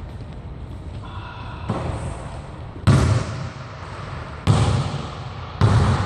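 Basketball bounced on a hardwood gym floor: four bounces about a second apart, each with a hall echo.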